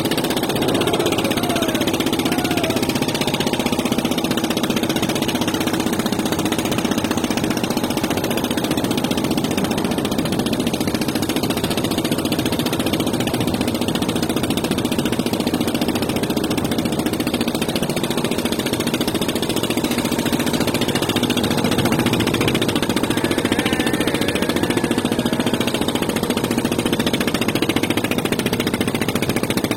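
A motor or engine running steadily at an even pitch and level, with a fast, even rattle.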